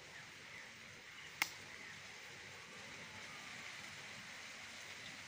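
Faint steady background hiss, with one sharp click about a second and a half in.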